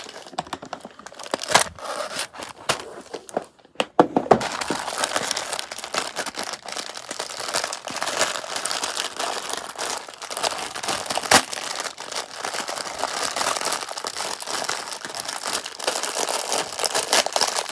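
Close crinkling and crackling of something being handled, a few scattered clicks at first, then continuous from about four seconds in.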